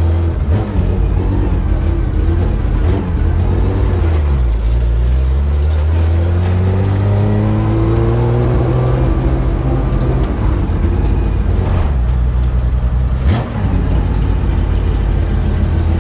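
Porsche 911 race car's flat-six engine, heard from inside the cabin while driving. Its pitch dips about four seconds in, climbs steadily under acceleration for several seconds, then falls away around ten seconds and settles, with a short knock about thirteen seconds in.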